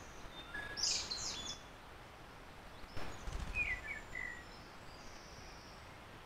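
Wild songbirds calling in woodland: a quick cluster of high chirps about a second in, then a click followed by a few lower short chirps and a thin, high drawn-out whistle.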